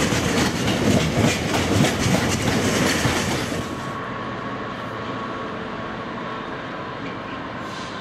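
Freight train hopper wagons rolling past close by, their wheels clacking rhythmically over rail joints. About three and a half seconds in the sound turns quieter and steadier: a Class 66 diesel locomotive approaching from further off, with a thin steady whine.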